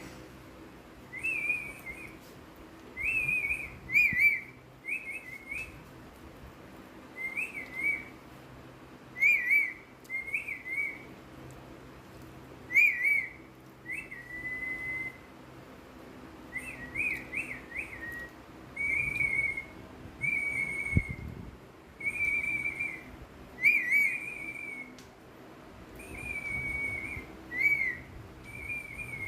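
Pet parrot whistling short, wavering phrases, one every second or two, some with a sharper chirpy edge.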